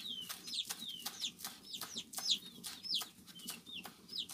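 Large kitchen knife chopping coriander and green onions on a wooden cutting board, about four chops a second, with chickens peeping repeatedly in short falling calls.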